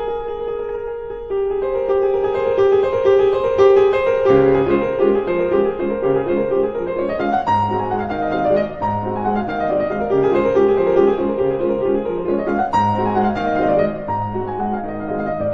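Background piano music: a light melody, with a bass line joining about four seconds in.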